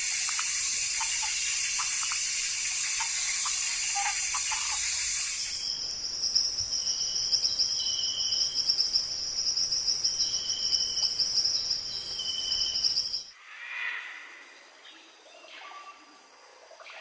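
Forest sounds in three parts: a loud steady rush of water, then about five seconds in a high, steady, fast-pulsing insect trill with short chirps over it, then near the end quieter scattered bird calls.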